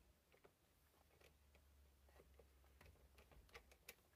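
Near silence with faint scattered small clicks, coming more often in the second half: hex stock bolts being wound into an air rifle's stock by hand with an Allen key.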